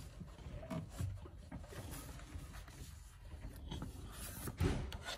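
Gloved hands fitting split rubber insulation hose over shifter cables: rubbing and handling noises with scattered small knocks, and a louder thump near the end.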